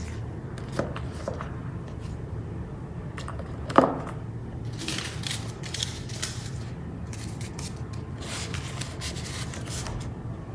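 A small leather handbag being handled as items are fitted inside: faint rustling and scraping, with one sharp knock about four seconds in, over a steady low hum.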